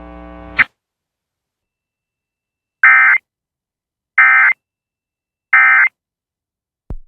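Emergency Alert System end-of-message code: three short, identical bursts of shrill digital data tones, about a second and a half apart, starting about three seconds in. They signal the end of the tornado warning. Before them, a faint hum cuts off with a click.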